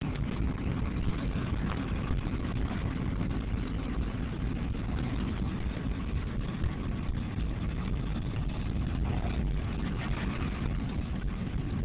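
Steady low rumble of a car running, engine and road noise without a break.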